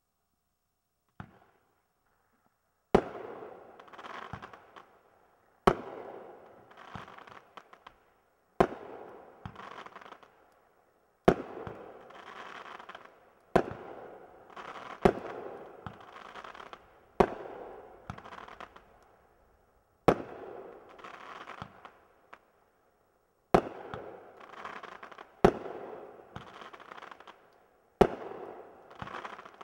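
Brothers Pyrotechnics "Super Stock Car" fireworks cake firing about a dozen single shots, one every two to three seconds. Each shot is a sharp launch thump followed by about two seconds of dense crackling as the gold shell breaks.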